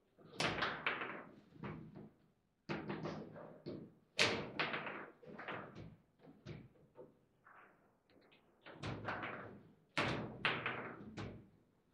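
Table football (foosball) in play: flurries of sharp knocks and clacks from the ball being struck by the rod figures and the rods banging in their bearings, in bursts of about a second with short pauses between.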